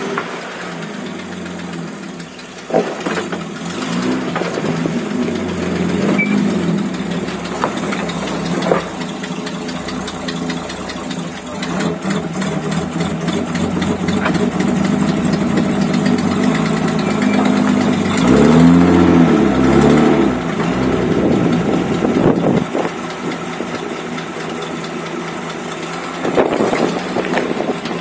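Land Rover Series IIa engine running at low revs as the vehicle crawls over rocks, with a few brief revs past the middle and occasional sharp knocks.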